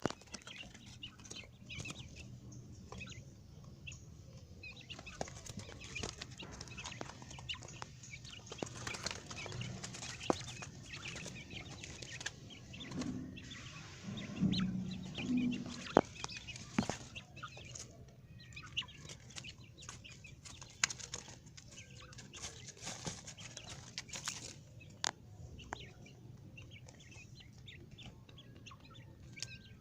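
Several quail calling and moving about, with many short clicks and scratchy rustles throughout and a louder stretch about halfway through.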